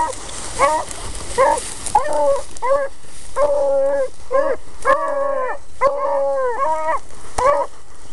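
Beagles giving tongue as they run a line: a string of short, ringing bay notes, roughly one or two a second. Some are drawn out and some overlap as more than one hound sounds at once, and they stop shortly before the end.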